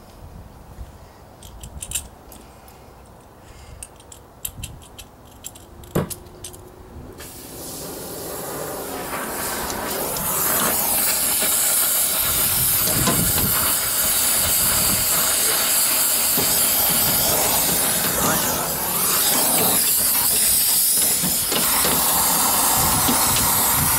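A few clicks and knocks, then a brazing torch's flame hiss that swells up about eight seconds in and stays loud and steady, heating a brazed joint to free the old filter-drier from the heat pump's refrigerant line.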